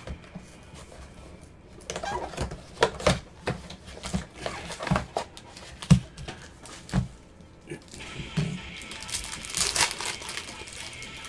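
Cardboard trading-card box and its packs being handled and opened: a run of sharp knocks and taps, then plastic wrapper crinkling and tearing about nine seconds in, over background music.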